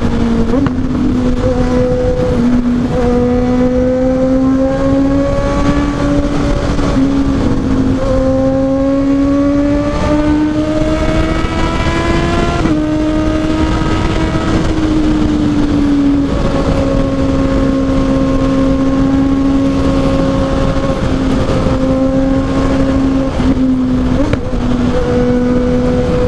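Honda CB650R's inline-four engine accelerating hard on the highway. Its note climbs and then drops sharply at each of several upshifts over the first dozen seconds, then runs at a near-steady pitch, with heavy wind rush on the microphone throughout.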